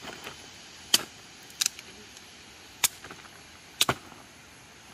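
Four short, sharp clicks or knocks at uneven intervals, two of them doubled, over a faint steady background.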